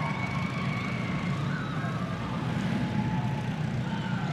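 Several racing karts' small single-cylinder Predator engines running together, their high-pitched whines holding and sliding slowly in pitch as the karts come off the throttle, over a steady low rumble.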